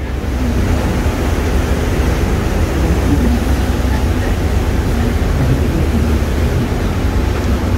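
Steady, loud rush of a fast passenger boat under way, heard on its open rear deck: engine rumble, the churning wake and wind on the microphone blended into one continuous noise.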